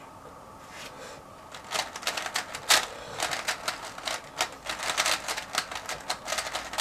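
3x3 Rubik's cube being turned quickly in the hands, a rapid run of sharp plastic clicks from the layer turns, starting about two seconds in after a quieter stretch. These are the turns of a blindfolded solve's execution.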